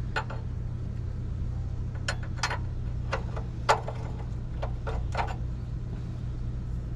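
Short, irregular clicks and taps of a wrench on the oil drain plug as it is snugged back into the oil pan, about eight in all, over a steady low hum.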